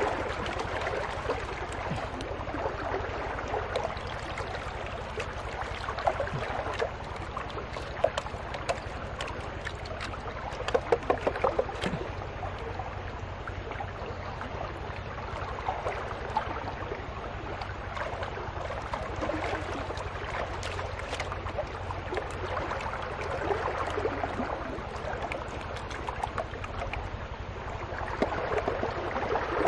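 Water sloshing and splashing as a wooden gold pan is swirled and tipped in shallow muddy water, washing sediment out over the rim, with a few sharper splashes near the middle.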